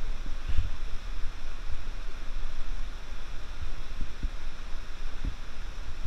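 Steady rushing noise of the canyon stream, with a few low thumps on the microphone.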